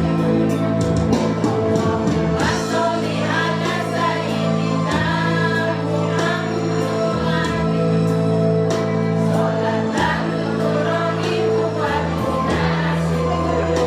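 A choir singing a song over held accompaniment chords and a regular percussive beat.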